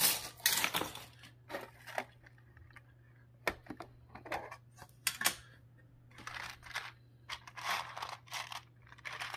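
Handling noise: circuit boards clicking as they are set down, then a thin metal tin knocked and opened, and small capacitors rattling as fingers rummage through it in the second half. A steady low hum runs underneath.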